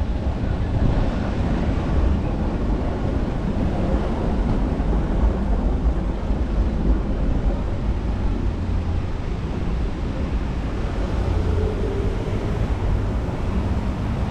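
Traffic on a wet city street: a steady low rumble with tyre hiss on the wet road, and wind buffeting the microphone.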